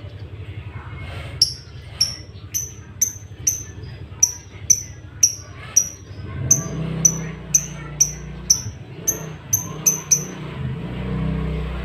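A lovebird giving a long series of short, sharp high chirps, about two a second, coming slightly faster toward the end. A low, steady rumble joins about halfway through.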